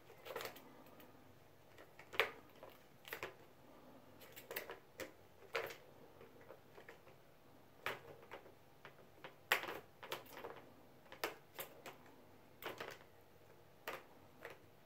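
Kitten batting at a plastic ball-track cat toy: balls rattling in the plastic tracks and paws knocking the frame, making faint, irregular clicks and knocks, one or two every second or so.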